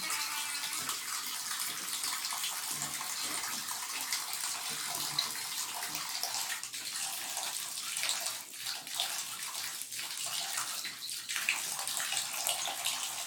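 Water running steadily from a tap into a tub or basin, a constant splashing hiss.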